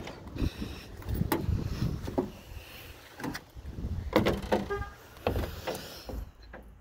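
The rear door of a Chevrolet Suburban is opened by its chrome handle: the latch clicks and the door knocks and rattles as it swings open, with a brief squeak about two thirds of the way in.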